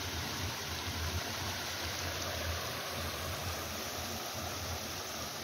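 Small stream cascading over mossy boulders into a rocky pool, a steady rush of running water.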